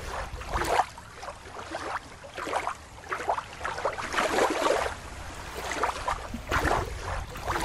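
Shallow water lapping and splashing at the shoreline in irregular washes, over a low rumble.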